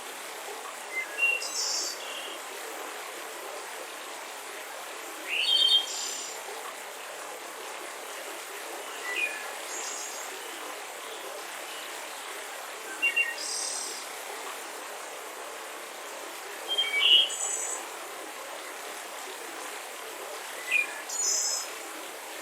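Steady rushing of a mountain river, with a bird giving short chirping calls about every four seconds over it, six times.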